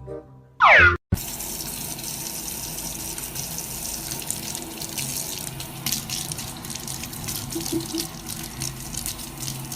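A cartoon-style boing effect sliding down in pitch, then after a short break a steady rush of running water, like a tap running into a sink, with a few faint clicks.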